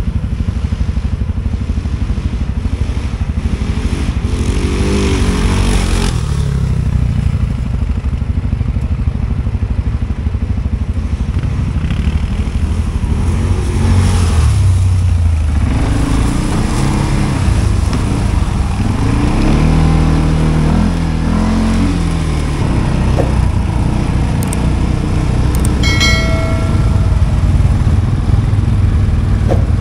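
CF Moto 520L ATV's single-cylinder engine running under load, its revs rising and falling several times as it is throttled up and down. A short high squeal sounds near the end.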